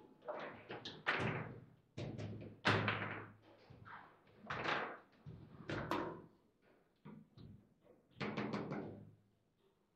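Foosball ball and rods in play: irregular sharp knocks and bangs as the plastic players strike the ball and it hits the table's walls, each knock ringing briefly through the table.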